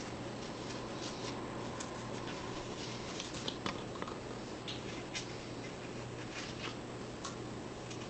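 Room tone: a steady low hum and hiss with scattered small clicks and rustles.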